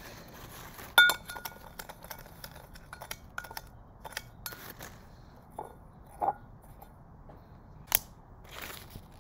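A rod clinking and scraping against a Pyrex glass measuring cup of sugar and sodium chlorate mixture. A sharp ringing clink comes about a second in, then a run of lighter clinks for a few seconds, then a few scattered taps, with another sharp one near the end.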